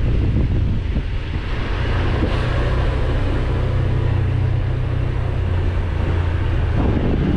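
Wind buffeting the microphone during a motorbike ride, with the motorbike's engine running steadily underneath.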